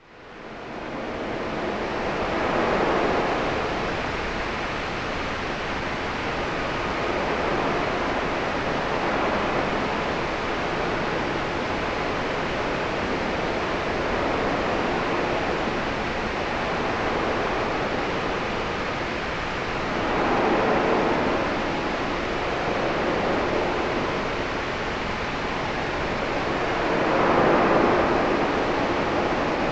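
Cabin noise played as a white-noise sleep track: an even, steady hiss with a few slow swells, fading in over the first second.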